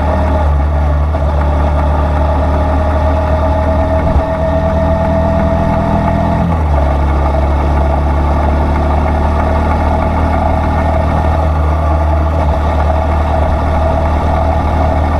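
Motorcycle engine running steadily, with a slight change in its tone about six and a half seconds in.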